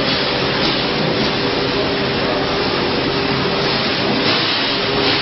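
Five-axis CNC stone-carving router running: a steady machine noise with a low hum, and brief surges of hiss a few times as the cutter works the stone.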